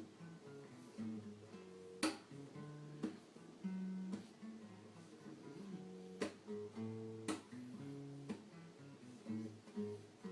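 Acoustic guitar being played: plucked notes that ring on, broken every second or two by a sharp strummed chord.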